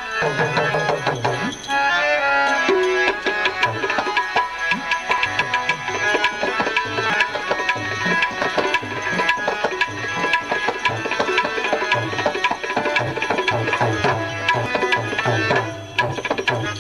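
Bhajan music with tabla playing a busy rhythm over steady held notes.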